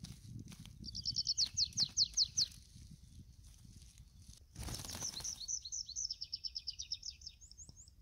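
Tree pipit singing. A little after the start comes a phrase of about seven clear down-slurred notes; after a pause comes a longer phrase of fast trilled notes that ends in a few rising notes. A brief rustle comes just before the second phrase, over a low rumble.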